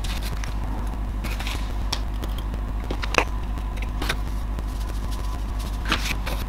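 Spice jars and containers handled on a kitchen counter: scattered clicks and taps of caps and plastic, the sharpest about three seconds in, over a steady low hum.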